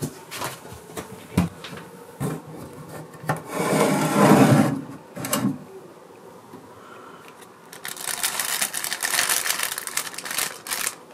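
Light knocks and taps in a wooden entrance hall, then a wooden shoe cupboard door scraping open about four seconds in. Near the end, the clear plastic wrapping of a packet of socks crinkles as it is picked up and handled.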